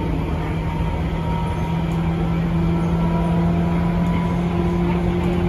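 Tobu 9000 series electric train motor car running, heard inside the car: a steady hum of several chopper tones over low wheel and track rumble. The armature chopper is back to its normal sound, no longer the odd 201/203-series-like tone it had made.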